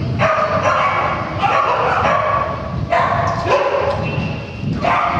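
A dog barking and yipping in repeated high-pitched strings, several bouts of about a second each.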